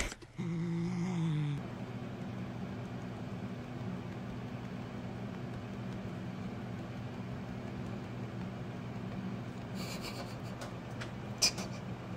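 Domestic cat purring steadily while being stroked: a low, even, rhythmic purr. It is preceded by a brief pitched sound in the first second or so.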